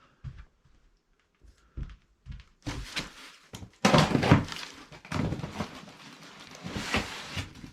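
Cardboard box and packed parts being handled and shifted: a few scattered knocks, then a louder stretch of rustling, scraping and thunks, loudest about four seconds in.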